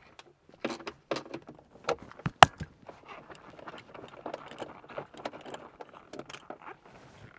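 Small metallic clicks and clinks of bolts and insulated hand tools as the bolts are undone from the cover of a Tesla Model S high-voltage junction box, with one sharp click about two and a half seconds in and a denser patter of small clinks and handling noise after that.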